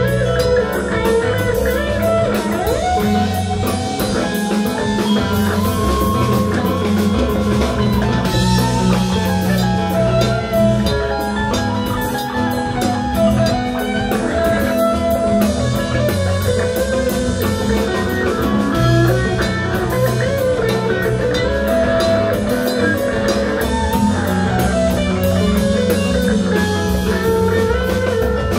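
Live band playing an instrumental passage, electric guitar prominent over bass and drum kit.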